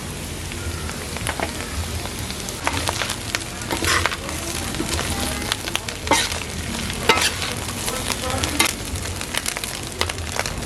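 Food frying and sizzling in a hot pan, with a steady crackling hiss and a few sharp clinks as it is stirred.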